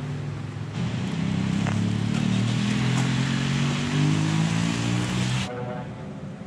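A motor vehicle going past on a wet road: the engine note climbs slowly and the tyres hiss. It comes in about a second in and stops abruptly near the end.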